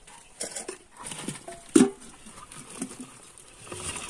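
Live small catfish slapping and flopping on a plastic tarp as they are tipped out of an aluminium pot, with rustling plastic and a sharp knock a little under two seconds in.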